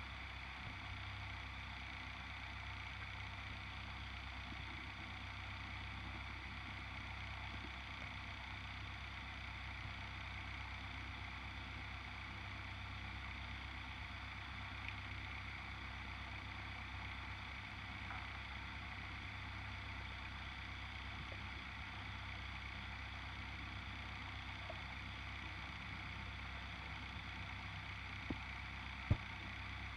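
Steady underwater hum and hiss picked up by a submerged camera, with two sharp clicks near the end.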